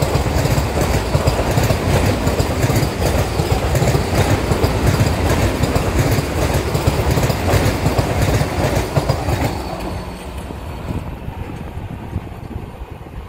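Vande Bharat Express electric multiple-unit coaches rushing past at speed close by, the wheels clattering rapidly over the rails. About ten seconds in, the noise falls away sharply to a much quieter rumble.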